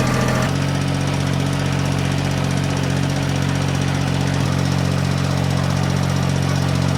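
An engine running steadily at a constant speed, with a small shift in its tone about half a second in.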